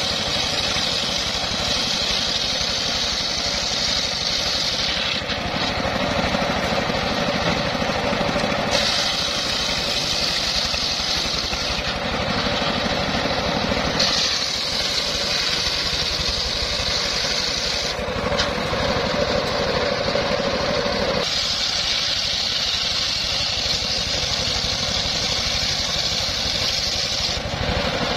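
A homemade sawmill's large circular saw blade, driven by an engine that runs steadily throughout, ripping boards off a log. The high cutting noise comes and goes in stretches of a few seconds, switching off and back on about five times.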